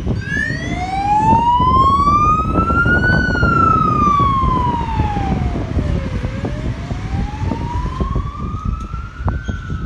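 SES rescue truck's electronic siren cutting in and sounding a slow wail, rising in pitch for about three seconds, falling for about three, then rising again, as the truck pulls away.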